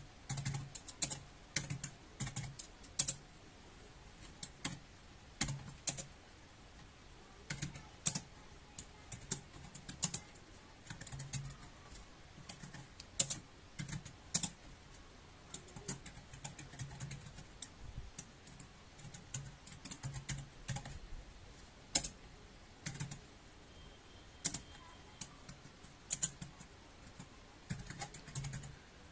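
Computer keyboard typing: irregular keystrokes in short bursts with pauses between, as short commands are typed out, with a louder key strike now and then.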